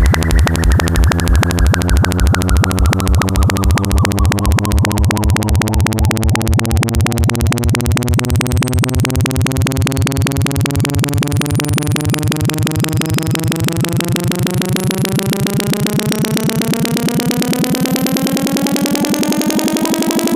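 Electronic synthesizer tone pulsing a few times a second, the pulses getting faster and the pitch slowly rising throughout; a fainter high tone glides downward in the first several seconds.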